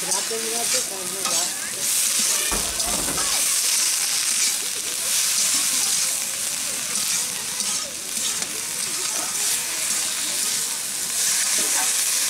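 Pointed gourd leaves and brinjal sizzling as they are stir-fried in a wide aluminium kadai, a metal spatula scraping against the pan and tossing them over and over. A brief dull bump about two and a half seconds in.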